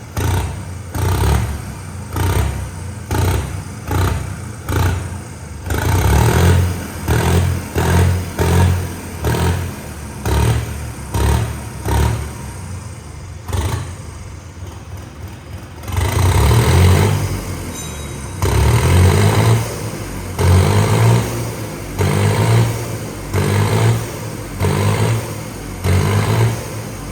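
John Deere 5305 three-cylinder diesel tractor engine running with its silencer removed, revved in quick repeated throttle blips, with a short lull near the middle and one longer rev after it. The open exhaust gives the turbo-like whistle (seeti) the owner hears with the silencer off.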